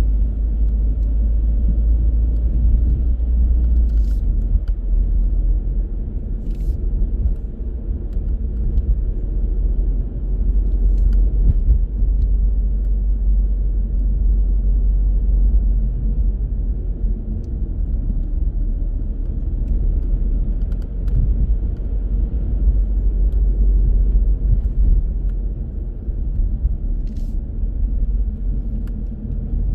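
Steady low road and engine rumble of a car being driven, with a few faint clicks.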